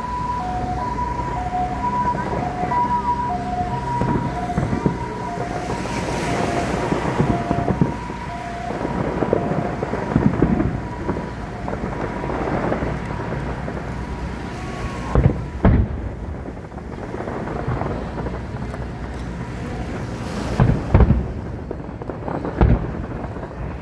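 Aerial fireworks booming and crackling, with sharp single bangs about two-thirds of the way through and near the end. For the first third a two-tone hi-lo siren wails underneath, then fades out.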